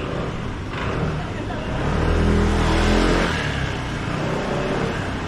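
A motor vehicle passing close by with its engine revving, loudest about two to three seconds in, over street noise and scattered voices.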